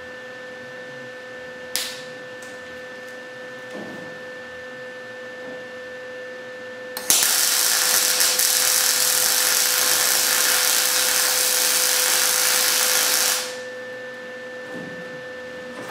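MIG welder arc burning a continuous bead on sheet metal, a steady loud crackling hiss that starts about seven seconds in, runs about six seconds and cuts off suddenly. Before it there is only a low steady hum and a single click.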